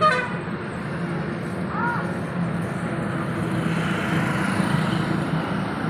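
Steady rumble of road traffic and vehicle noise. A brief high chirp comes about two seconds in.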